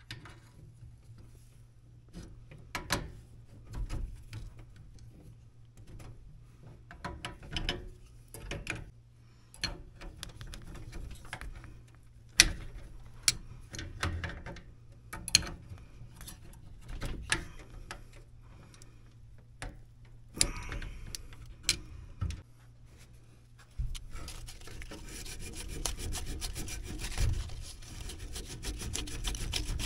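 Adjustable wrench working a brass flare nut on a copper refrigerant line, tightening a new TXV: scattered metallic clicks, knocks and short scrapes. About three-quarters of the way in, a steadier rough rubbing noise takes over.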